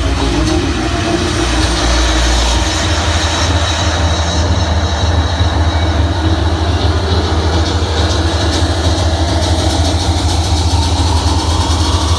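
A tour boat's engine running steadily: a loud, even low rumble with a wash of noise over it.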